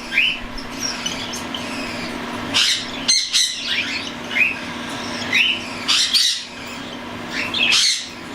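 Young cockatiels calling: a run of short rising chirps, with harsher squawks scattered among them.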